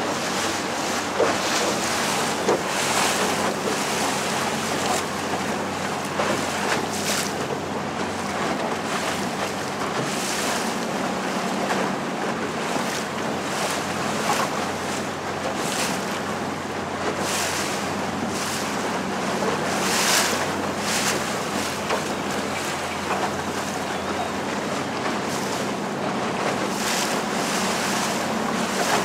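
A small open boat under way: its motor runs steadily with a low hum beneath the rush of water along the hull, and wind buffets the microphone in repeated gusts.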